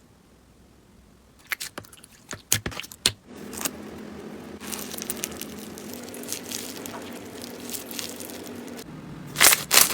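Slime being pressed and worked by hand: scattered crisp clicks and crackles, then a steadier run of squishing, and a burst of loud crackles near the end.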